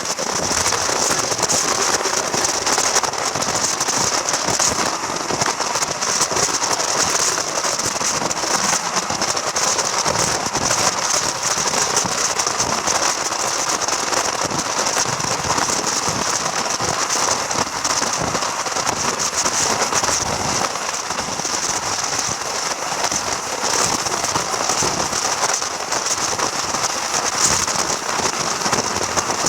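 Passenger train running, heard on board: a steady hiss with dense fine crackle.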